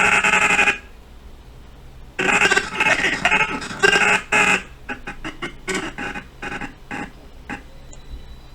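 Choppy, garbled snippets of a recorded voice line, chopped up as the animation timeline is scrubbed and stepped frame by frame with audio scrubbing on: one short burst at the start, a longer choppy run about two seconds in, then a string of brief clips.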